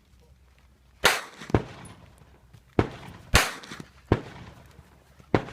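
Pistol shots fired in a string: about six sharp reports, spaced roughly half a second to a second and a bit apart.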